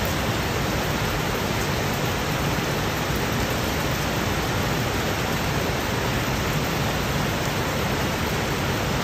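Heavy rain pouring down with running floodwater: a steady, dense hiss of rainfall that does not let up.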